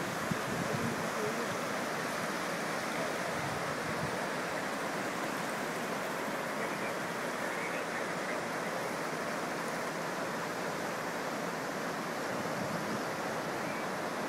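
Steady rushing of a fast-flowing river in flood.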